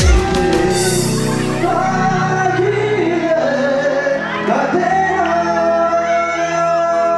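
Live Nepali pop song: a voice sings over held chords, and the drum beat drops out just after the start.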